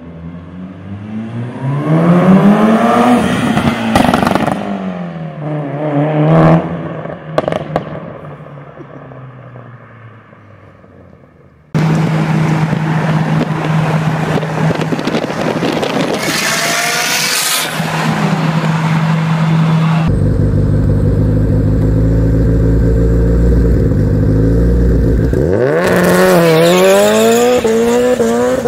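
Several short car clips run one after another. First a car accelerates hard toward and past, its revs climbing through two gears before fading away. Next a red Mitsubishi Lancer Evolution's turbocharged four-cylinder runs at steady revs as it drives alongside. Near the end an engine revs up hard, heard from inside a car.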